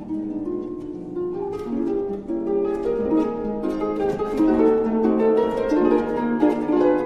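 Background instrumental music played on plucked strings, a steady flow of quick picked notes over longer held tones.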